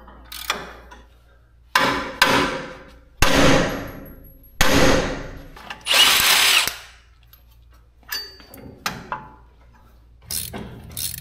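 Handheld cordless power tool running in several short bursts on the front brake caliper bolts, with smaller clicks of tool on metal between them.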